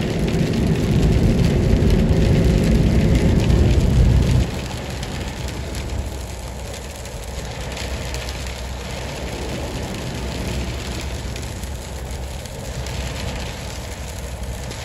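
Rain hitting a moving car's windshield with wet-tyre road noise on a highway. A heavy low rumble for about the first four seconds drops off suddenly, leaving a steadier hiss of rain and road.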